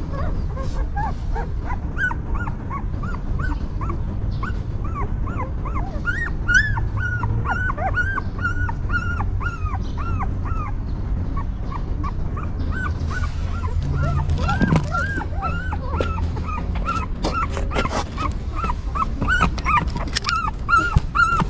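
Newborn puppies whimpering: a long run of short, high, arching cries, about two or three a second, with a brief lull near the middle.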